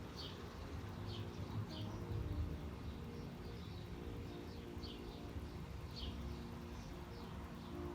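Small birds chirping, short falling chirps repeated every second or so, over the steady low rumble of city traffic.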